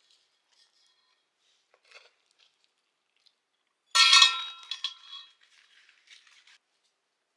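Metal spoons clinking against a large metal serving bowl as people scoop food from it: a few faint taps, then one loud ringing clink about four seconds in, followed by several lighter clinks.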